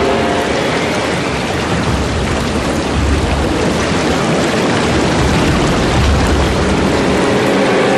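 Sound effect of a giant magical water mass swirling and churning: a dense, steady rush like heavy rain, with low rumbles now and then.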